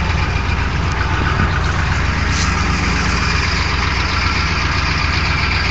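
A 1983 Chevy C20's 6.2-litre V8 diesel idling steadily, still cold after a cold start.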